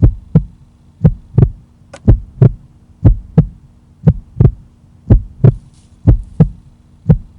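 Heartbeat sound effect: paired lub-dub thumps about once a second, over a steady low hum.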